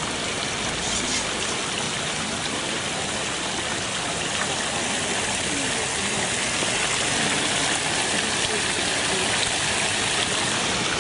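Small garden fountain's water jets splashing steadily into its stone basin, growing a little louder in the second half.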